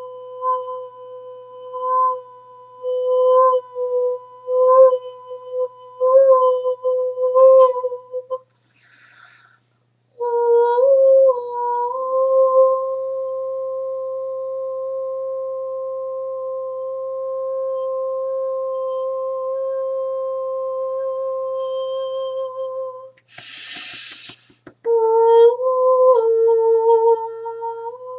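A woman's voice toning on one high, nearly pure note, first in a run of short swelling pulses, then held steadily for about ten seconds. A short breathy hiss breaks it, and the toning resumes in a few short notes that step a little lower.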